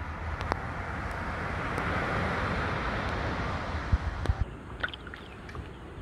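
Small waves washing up on the beach, a rush of surf that swells and fades, over a low rumble of wind on the microphone. About four seconds in it gives way to quieter water with a few light clicks.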